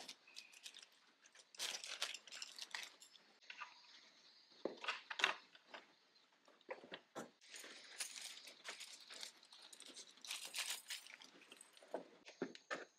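Clear plastic packaging bags crinkling and rustling as small parts are unpacked and handled, in irregular bursts mixed with light clicks and taps.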